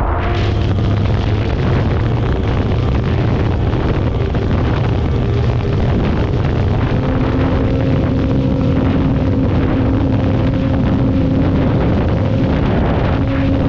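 Snowmobile engine running hard at a steady pace, loud and continuous, its note holding nearly level with a stronger tone joining about halfway through.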